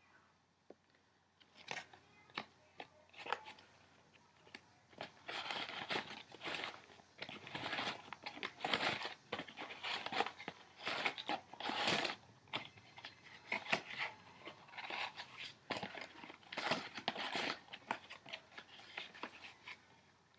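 Crinkly material such as paper, cardboard or plastic wrapping being handled: irregular rustling and crinkling with sharp clicks and taps, starting about a second and a half in.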